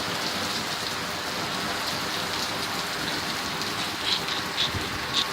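Heavy rain pouring down steadily, hard enough that flooding is expected. From about four seconds in, a few sharper splashes of nearby drops stand out over the steady hiss.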